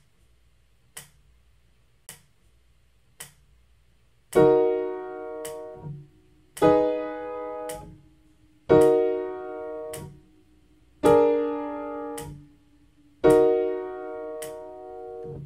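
Three short clicks about a second apart, then a piano playing five right-hand block chords in E-flat minor, each struck, held for over a second and released: the i–iv–i–V7–i progression (E-flat minor, A-flat minor, E-flat minor, B-flat dominant seventh, E-flat minor).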